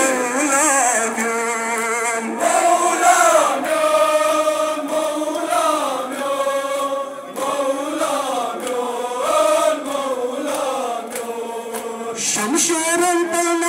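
A crowd of men chanting a Kashmiri noha, a Shia mourning lament, together in a wavering melody, with repeated sharp hand slaps of chest-beating matam.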